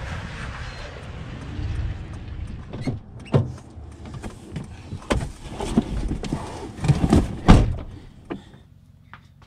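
Steady outdoor traffic noise, then a run of knocks and thuds as a cardboard parcel is loaded into a car and a car door is worked; the loudest thud comes about seven and a half seconds in.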